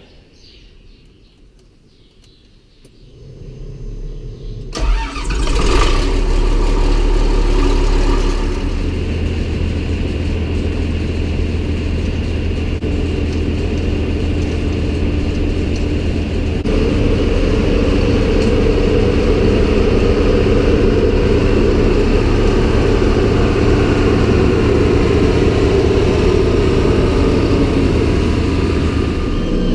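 Farm tractor engine being started cold: the starter cranks from about three seconds in, the engine catches about two seconds later and runs fast briefly before settling into a steady run. About halfway through, it steps up to a louder, steady run that holds.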